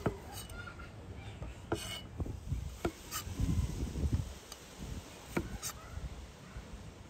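Chef's knife halving small green tomatoes and knocking down onto an end-grain wooden cutting board in irregular strikes, roughly one or two a second. A low rumble comes through around the middle.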